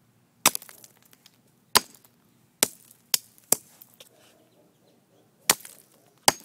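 Hammer blows striking a frozen can of diet root beer: seven sharp, irregularly spaced strikes, with fainter clicks and crackles between them.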